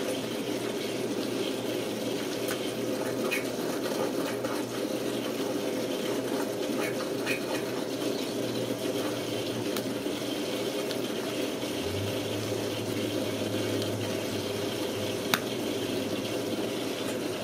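A steady rushing noise like running water, with a few faint light clicks as a diamond-painting pen picks resin drills from a plastic tray and sets them on the canvas. A low hum joins about twelve seconds in.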